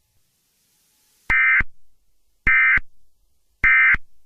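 Emergency Alert System end-of-message data tones: three short, identical electronic bursts, about a second apart, signalling the end of the alert broadcast.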